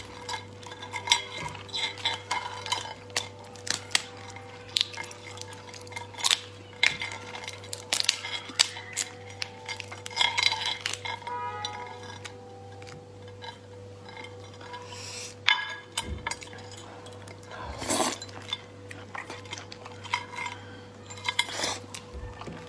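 Langoustine shells being cracked and peeled by hand, a string of irregular sharp crackles and clicks with occasional clinks against a ceramic plate, over a faint steady hum.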